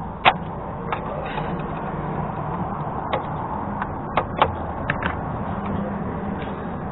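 Screwdriver tightening worm-drive hose clamps on a patched muffler pipe, with about eight sharp, irregular metal clicks, the loudest near the start. Under them runs a steady low hum.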